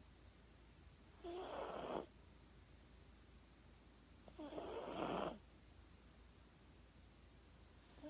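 A sleeping Papillon dog snoring: two rasping snores, each under a second long and about three seconds apart, with a third starting near the end.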